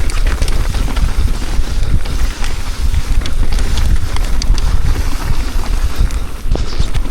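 Mountain bike riding down a rough trail: wind buffeting the microphone with a heavy rumble, over scattered clicks and rattles from the bike and tyres.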